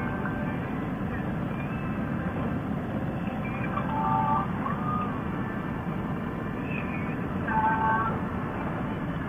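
Harley-Davidson touring motorcycle's V-twin engine running at steady cruising speed, mixed with wind and road noise. Two short tones sound briefly, about four seconds in and again near eight seconds.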